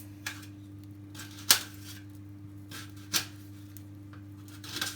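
A few scattered sharp clicks and taps of kitchen utensils and food being handled, the loudest about a second and a half in. A steady low electrical hum runs underneath.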